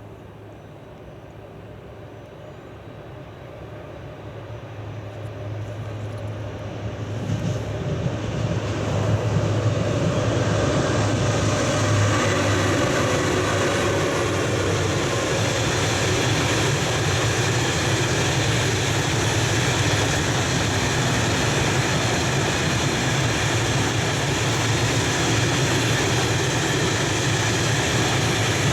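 Freight train hauled by two Sr1 electric locomotives, approaching and then passing close by. The sound builds over the first ten seconds or so, then the train rolls past, steady and loud.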